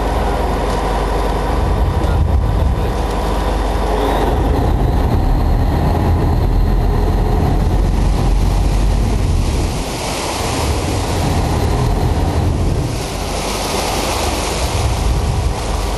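A boat's engine running steadily while wind buffets the microphone. Water rushes along the hull, swelling about ten seconds in and again near the end.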